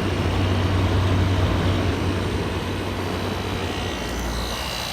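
1988 Carrier International Series through-the-wall air conditioner running, a steady drone of its Toshiba compressor and fan with a low hum. The low hum eases a little near the end.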